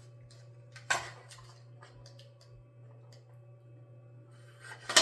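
Pie press and pie dough being handled on a countertop: light rubbing and faint ticks, with two sharp clacks, one about a second in and one at the end. A steady low hum runs underneath.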